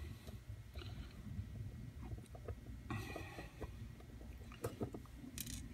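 Faint handling of a lock as it is worked on with a Phillips screwdriver to take it apart: scattered light metal clicks, with a brief scrape about three seconds in, over a low steady hum.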